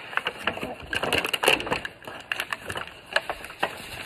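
Small plastic toy pieces being handled and set down: irregular clicks, taps and crackles.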